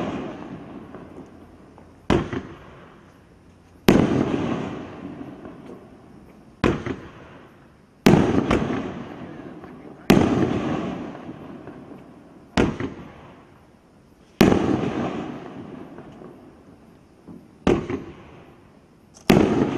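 Flashing Fireworks 'Crazy Aces' firework cake firing shot after shot into the air. There are about nine sharp bangs, roughly every two seconds, each followed by a fading rumble.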